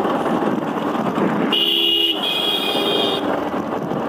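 A vehicle horn honks twice about a second and a half in, a short blast then a longer one, over the steady rush of a motorcycle riding through traffic.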